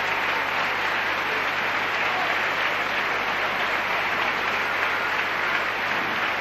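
Opera-house audience applauding steadily.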